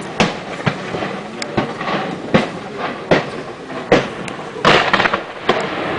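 Fireworks going off: irregular sharp bangs, roughly one every half second to second, with a denser crackling burst near the end.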